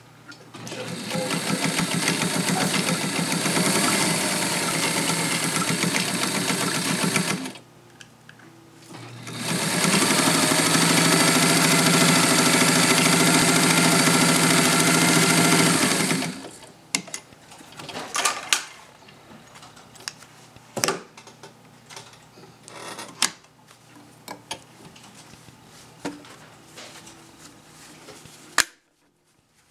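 Kenmore zigzag sewing machine running and stitching through layered fabric in two steady runs of about seven seconds each, the second louder. After it stops, scattered sharp clicks and handling noises as the fabric is worked out from under the presser foot.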